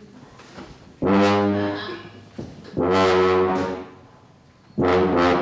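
Low brass instrument playing three loud held notes, each lasting about a second, with short pauses between; the third note starts near the end and carries on.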